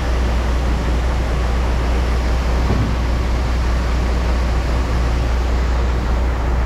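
Grain truck running steadily with a constant low drone and an even rushing noise while its load of corn is dumped into the pit.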